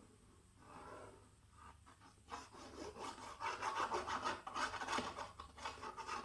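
Glue being spread onto a card-paper box base, heard as quick rubbing strokes that start about two seconds in and keep going.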